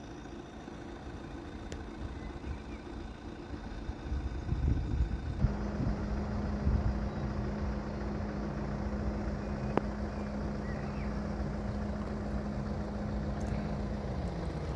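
A motor vehicle's engine running with a steady hum. It gets louder about five seconds in and drops in pitch near the end.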